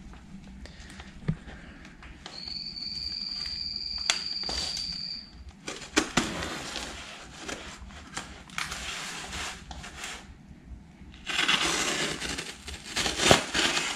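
Plastic shipping wrap and tape on a package being cut with a blade and torn open: scattered clicks and crinkling, with a louder stretch of tearing and crinkling near the end. A thin steady high tone sounds for about three seconds, starting about two seconds in.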